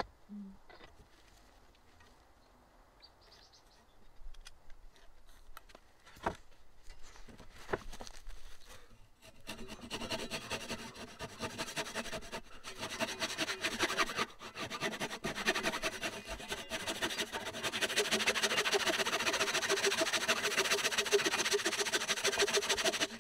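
A Japanese pull saw cutting across a square softwood beam. At first there are only a few light knocks from handling. From about ten seconds in comes a steady, fast rasping of the saw teeth, which gets louder as the cut goes deeper.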